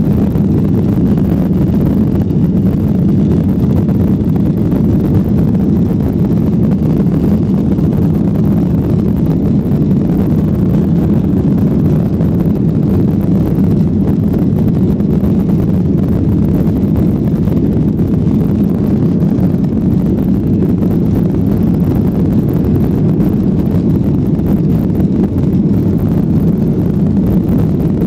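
Boeing 737 jet engines and rushing air on the takeoff roll, heard from inside the passenger cabin: a loud, steady low rumble with no change in level.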